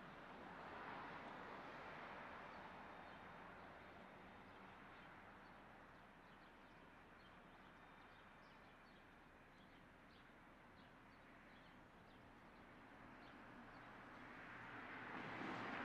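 Faint rumble of a freight train's last cars moving away, fading over the first several seconds, with faint bird chirps. A rushing noise swells near the end.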